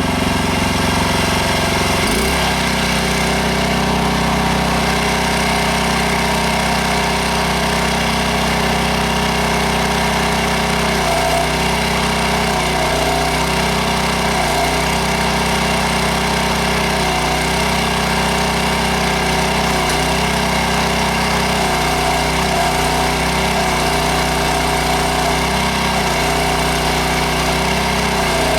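Small gas engine of a towable backhoe running steadily while digging. Its note changes about two seconds in, and from about a third of the way through it shifts again and again at irregular moments as the load changes.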